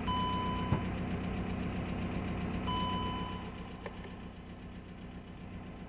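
The 2.0 TDI four-cylinder diesel of a 2014 VW Crafter van idling steadily, heard from inside the cab. Two short dashboard warning chimes sound over it, one at the start and another about two and a half seconds later.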